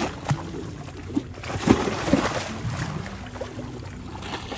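Small sea waves lapping and sloshing against the shore in irregular surges.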